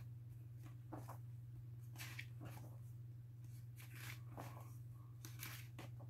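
Pages of a large, heavy book being turned and handled: faint, short paper rustles and scrapes every second or so, over a steady low hum.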